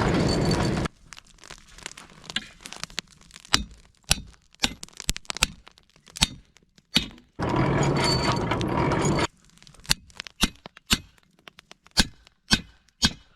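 Hand-cranked forge blower whirring in two short spells, near the start and again about halfway through. Between them the charcoal fire crackles with sharp, irregular pops.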